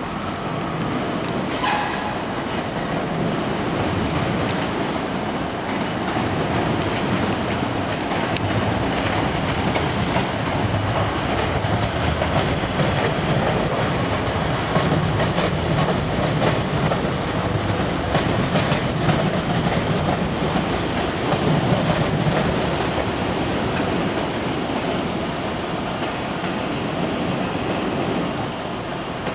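Electric multiple-unit train rolling slowly over the station pointwork, its wheels clattering steadily over rail joints and crossings. There is a thin, high wheel squeal in the first few seconds.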